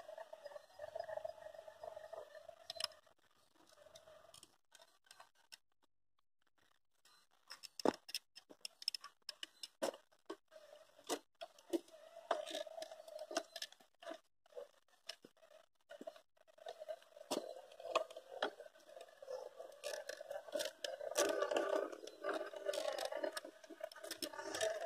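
Radio-controlled scale crawler driving slowly over dirt: its brushless motor and spur-gear drivetrain whine in spells, stopping for a couple of seconds a few seconds in. Tyres and body scrape and crunch over soil, twigs and dry leaves, with many small clicks.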